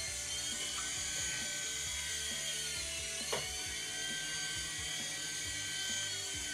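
Small 3.5-channel gyro-stabilised toy RC helicopter in flight, its little electric motors and rotors whirring steadily as it hovers. One brief tick a little over three seconds in.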